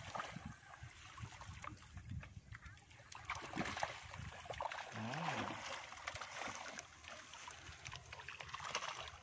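Shallow pond water splashing and sloshing as a seine net is hauled in by hand, with the trapped catch thrashing inside the net.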